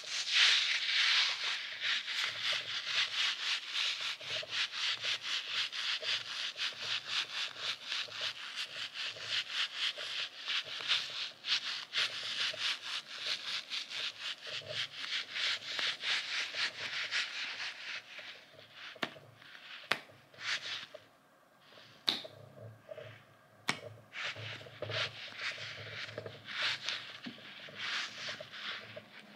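Fingers rubbing and squeezing a soft goose-shaped squishy toy: a quick, even run of rubbing strokes that thins out about two-thirds of the way through, with a few sharp clicks in the later part.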